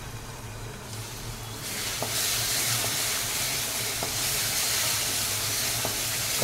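Onion, garlic-ginger and tomato masala sizzling in oil in a kadai as it is fried down until soft. The hiss grows louder about two seconds in. A few light ticks from the spatula stirring the masala are heard in it.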